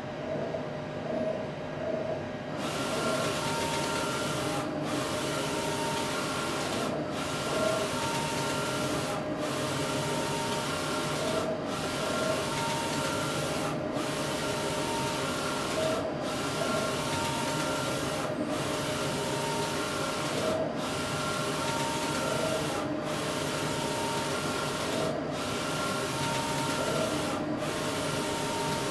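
Roland wide-format printer running a print job: a steady whirring rush with a whine, broken by a short pause about every two seconds as the print-head carriage sweeps back and forth across the film. The rush comes in about two and a half seconds in; before that the machine runs more quietly.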